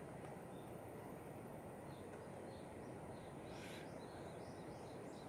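Quiet outdoor background noise, steady throughout, with small birds chirping faintly several times in the second half.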